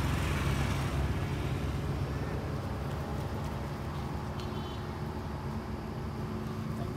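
Low engine rumble of a motor vehicle, slowly fading away, with a brief high chirp a little past the middle.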